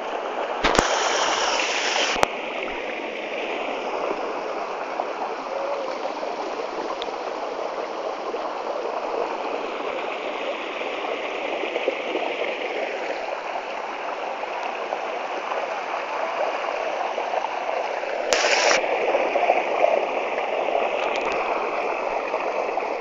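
Mountain stream water running steadily, with a short louder rush about a second in and another near the end.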